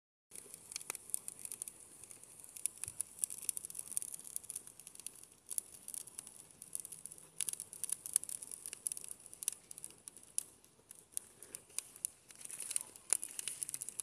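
Wood fire burning in a small metal brazier grill, crackling with rapid, irregular sharp pops over a steady high hiss.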